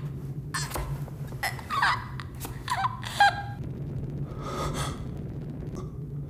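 A boy's voice gasping and whimpering after being stabbed through the chest: three short, choked gasps that bend in pitch in the first half, then a softer breath near the end, over a low steady hum.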